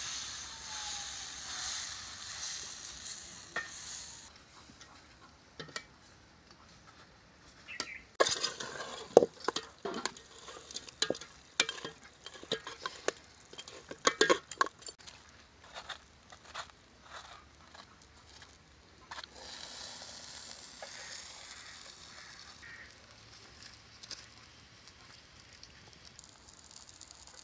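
Paratha dough sizzling on a hot iron tawa. Then, for several seconds, a metal ladle stirs thick curry in a metal pot, with many sharp knocks and clinks, and the sizzling returns in the last third as the oiled paratha fries.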